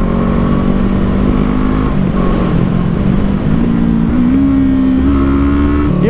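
Kawasaki Eliminator 450's parallel-twin engine with a 180-degree crank, running under way at road speed with wind rush. Its note holds steady, then steps up in pitch a couple of times past the middle as the bike slows.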